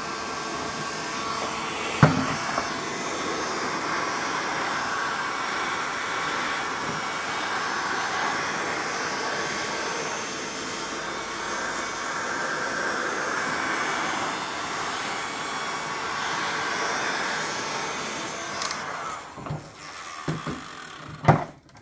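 Electric heat gun blowing steadily, warming the headlight housing to soften its sealant before the lens is refitted. There is a sharp knock about two seconds in. The blower cuts off near the end, followed by a few light knocks of handling.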